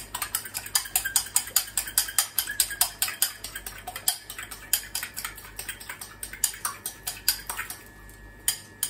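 A fork beating an egg in a small ceramic bowl: quick clinking strikes of metal on china, about four a second, with a short lull near the end.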